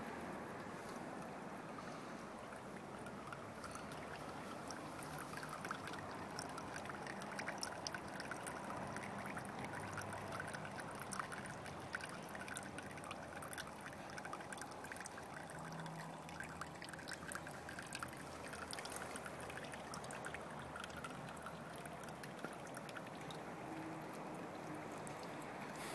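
A thin stream of water from a small fountain spout trickling and splashing steadily into a pond, with a light patter of drops.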